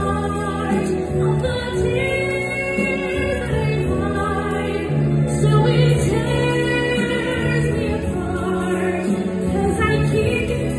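A woman singing a slow ballad into a microphone with instrumental accompaniment, holding long notes.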